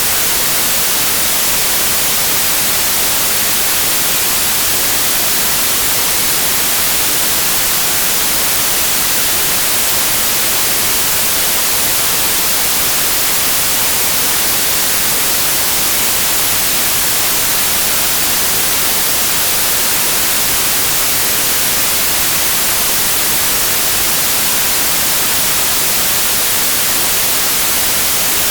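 Steady synthetic white noise for tinnitus masking: an even, loud hiss, brightest in the high frequencies.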